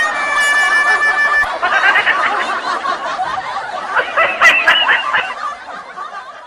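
High-pitched giggling and snickering: a long held high note for the first second and a half, then choppy tittering laughter that fades out near the end.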